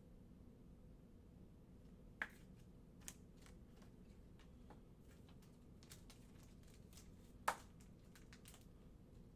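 Faint handling noises of trading cards and packs: scattered light clicks and rustles over a low room hum, with two sharper clicks, one about two seconds in and one about seven and a half seconds in.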